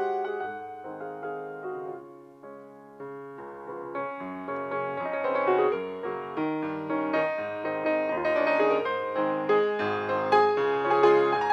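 Piano music, with a softer passage about two seconds in, then growing louder and busier.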